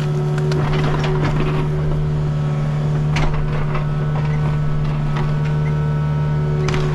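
An engine running at a steady speed, with a sharp knock or clank about three seconds in and another near the end.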